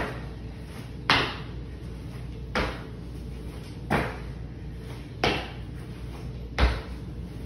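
Sneakers landing on a concrete floor from 180-degree hops: six thuds, one about every 1.3 seconds.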